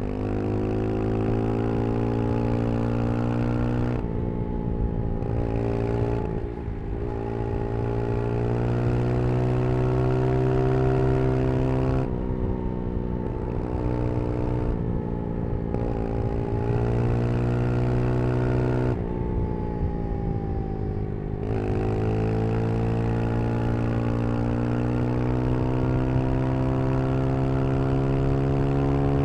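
Brixton Crossfire 125 XS motorcycle's small single-cylinder engine running under load. Its pitch climbs slowly, then drops briefly about six times at gear changes or throttle lifts.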